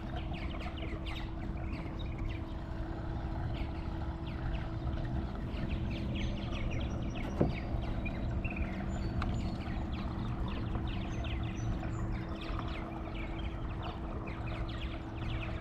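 Kayak on the water: a steady low rumble of water and wind with many small splashy ticks and a faint steady hum, and one sharp knock about halfway through.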